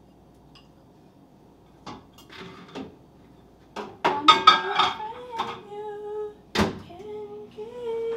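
Dishes and utensils clattering on a kitchen counter: a few light clicks, then from about four seconds in denser handling with sharp knocks, the loudest a little after six seconds. A voice hums a few held notes in the second half.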